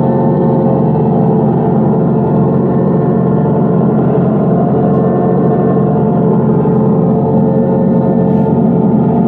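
Diesel locomotive engine sound from the onboard sound unit of a 1-inch-scale GP7 model locomotive, running steadily with an even, droning hum.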